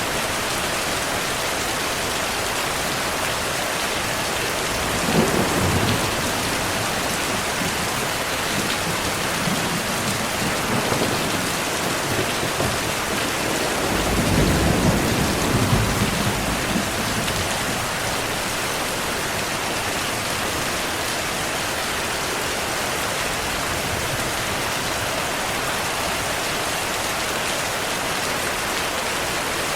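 Steady rain falling, with low rolls of thunder: a short one about five seconds in, a fainter one around ten seconds, and a longer, louder one in the middle.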